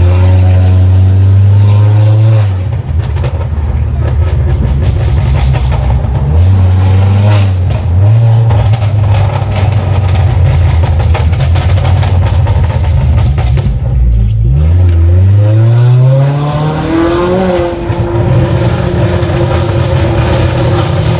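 Honda Accord's 1.5-litre turbocharged four-cylinder engine pulling hard under acceleration. Its pitch holds and wavers, then drops about two-thirds of the way through and climbs steeply again as the revs rise, starting to fall away near the end.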